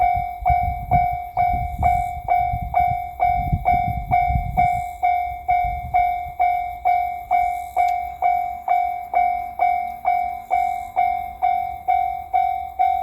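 Japanese railroad crossing warning bell ringing in an even "kan-kan" rhythm, about two strikes a second, each strike a bright ringing tone. Under it, the low rumble of the passing 8000 series electric limited-express train fades away about five seconds in.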